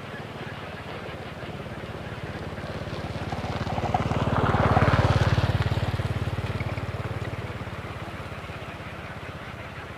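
A motor vehicle's engine passing by, swelling to its loudest about halfway through and then fading away.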